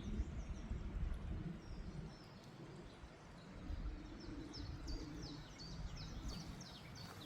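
A woodland bird singing a run of short, high, downward-sliding notes, about four a second, over a low rumble.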